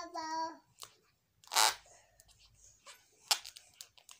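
A toddler's sung note ends just after the start. About a second and a half in comes a short, loud puff of noise, with a few light clicks and rubbing around it, as she mouths and handles a small rubber balloon.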